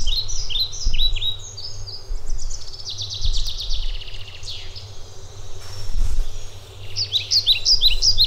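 Songbirds singing in woodland: repeated runs of quick down-slurred chirps, a fast trill about three seconds in, and another run of chirps near the end, over a steady low rumble.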